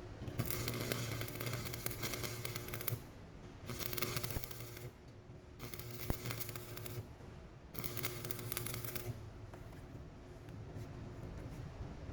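Stick welding arc crackling and hissing in four short runs of about a second each, with a low hum under the runs.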